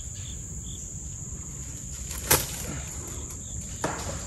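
Steady high-pitched insect chorus. A single sharp click or snap about two seconds in, and a fainter one near the end.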